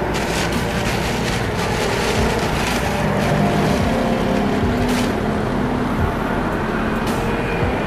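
Steady noise of road traffic alongside, with several brief rustles of a plastic shopping bag and clothing as hands dig through a motorcycle top box.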